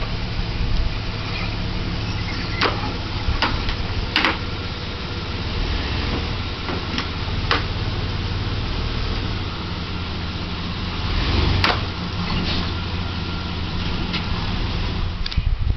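Full-size van's engine running steadily at low speed as the van creeps up a homemade wooden ramp onto a raised platform, with a few short sharp knocks and clicks along the way.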